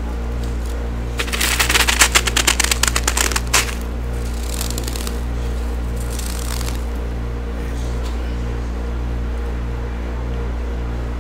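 A gloved hand scraping and scooping crisp frost from the bed of a chest deep freezer. There is a rapid run of crunchy crackles from about one to three and a half seconds in, then two softer scrapes. A steady low hum runs underneath.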